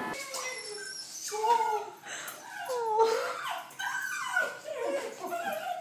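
A small dog whining and whimpering in a run of high cries that rise and fall, the excited sound of a dog greeting its owner as he holds it.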